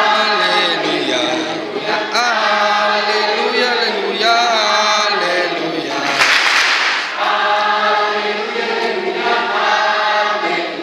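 Children and adults singing together as a group, a lively sung song filling the room. About six seconds in there is a short, loud rush of noise over the singing.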